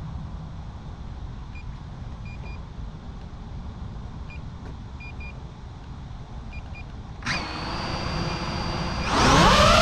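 FPV quadcopter drone: a few short high beeps over low wind noise, then about seven seconds in its electric motors start spinning with a steady whine, and near the end they throttle up with a louder rising whine.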